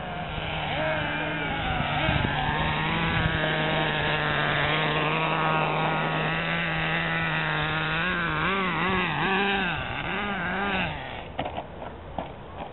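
Radio-controlled model car's motor running at a steady pitch, then revving up and down several times in quick succession, with a few knocks near the end.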